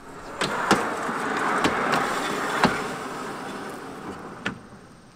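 Truck camper's folding tent room being moved by hand: a sliding, rubbing noise that starts about half a second in and fades after about three and a half seconds, with several sharp knocks along the way and one more near the end.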